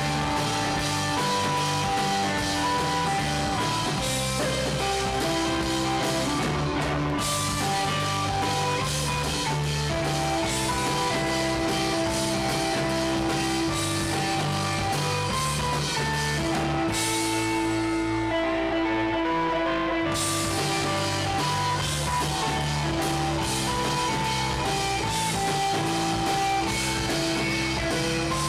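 Live rock band playing: electric guitars holding long sustained notes over bass and drums. About two-thirds through, the band thins out for a few seconds before the full sound comes back.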